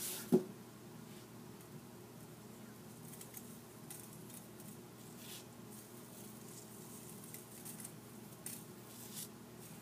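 Sea salt sprinkled by hand onto seasoned potatoes in a metal pan: faint, scattered ticks and rustles, with one sharp click just after the start. A faint steady hum runs underneath.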